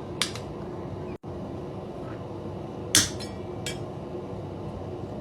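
Hammer tapping a center punch into steel, making a few sharp metallic strikes to mark pupils and whiskers on a hand-forged iron piece. The loudest strike comes about three seconds in.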